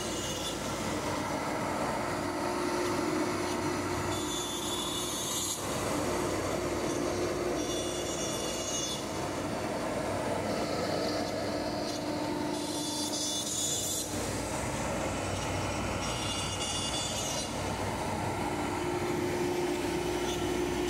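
Steady workshop machinery running, with a hissing surge about every four seconds.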